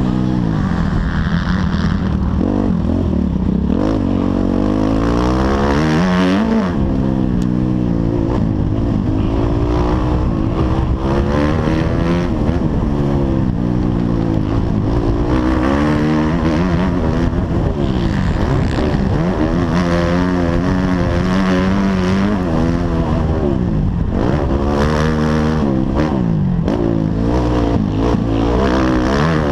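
Motocross bike engine being ridden hard, revving up and dropping back over and over, its pitch climbing and falling every few seconds through the corners and straights. It is heard close up from a helmet camera, with scattered knocks over the rough track.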